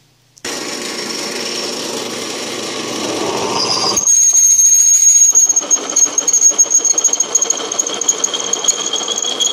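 Drill press boring a 5/8-inch hole through steel plate. Steady machine noise begins sharply about half a second in; from about four seconds in the bit cuts with a louder, steady high-pitched squeal. The bit is not very sharp.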